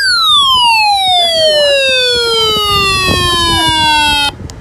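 A single electronic tone, rich in overtones, gliding steadily downward from a high shriek to a low pitch over about four and a half seconds, then cutting off abruptly just before the end.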